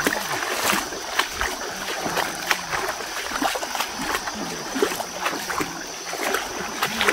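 Water splashing and sloshing in a shallow river, with irregular small splashes every second or so, over a steady high tone.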